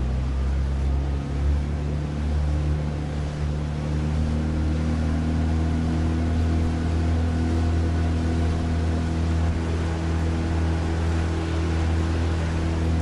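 New 20 hp four-stroke Mercury outboard motor running at high throttle, between about 4,000 and 5,000 rpm, while being broken in. Its pitch edges up a little in the first few seconds, then holds steady.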